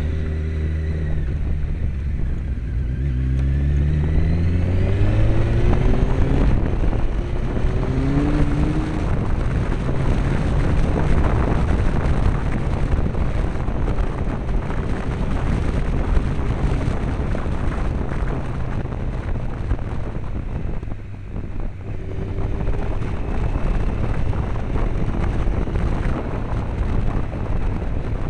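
Honda CBR900RR Fireblade's inline-four engine heard from behind the windscreen, climbing through the revs in several rising pulls as the bike accelerates through the gears. Wind rush on the microphone then largely covers it, easing briefly about two-thirds through before the engine pulls up again.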